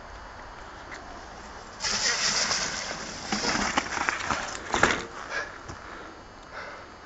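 Mountain bike splashing through a muddy puddle: a sudden burst of spray about two seconds in, then knocks and rattles as the bike rolls past close by.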